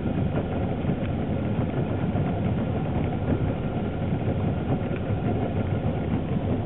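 Boat's outboard motor idling steadily, a low, even running sound.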